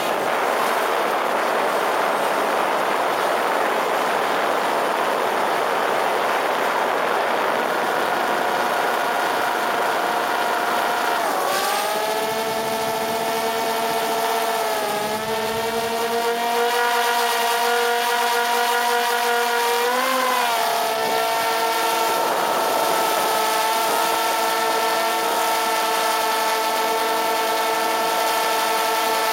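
DJI Spark quadcopter's motors and propellers heard up close, loaded with an LG 360 camera slung beneath it. At first a broad rushing noise, then after about eleven seconds a steady multi-tone whine that dips and rises in pitch a few times as the drone changes speed.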